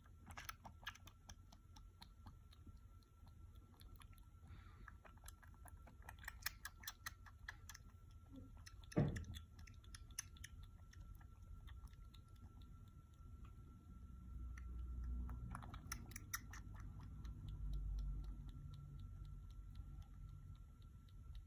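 Kitten suckling milk from a feeding bottle's nipple: faint, rapid wet sucking and smacking clicks coming in clusters. A single sharp knock about nine seconds in, and low rumbling for several seconds later on.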